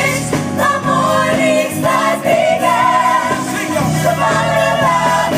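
Gospel choir singing in full voice over instrumental backing, with long held notes.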